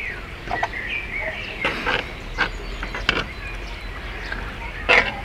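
Metal spoon stirring in a cast-iron Dutch oven, knocking and scraping against the pot in a handful of separate clinks, with small birds chirping in the background.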